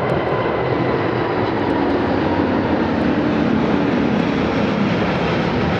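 Qantas Airbus A380's four Rolls-Royce Trent 900 turbofans at climb power as the jet passes low overhead just after takeoff: loud, steady jet engine noise. A faint whine in it fades away within the first second or so.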